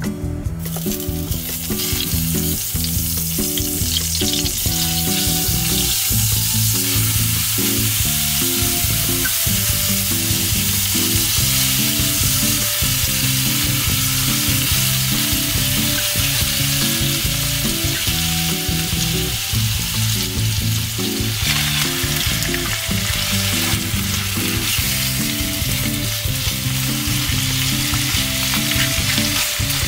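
Minced garlic frying in hot olive oil in a nonstick wok, a steady sizzle with the scrape of wooden chopsticks stirring. About two-thirds of the way through the sizzle grows louder as whole shell-on prawns go into the pan.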